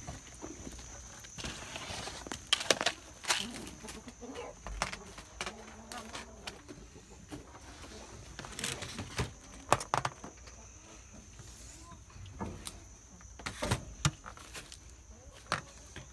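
Handling noise while gathering eggs: a dozen or so irregular sharp knocks and rustles, with a few soft clucks from hens in the coop.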